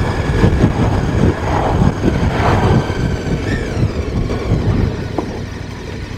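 Wind buffeting the rider's microphone on a motorcycle under way, with road and engine noise beneath, in irregular low gusts. The buffeting eases in the last second or so.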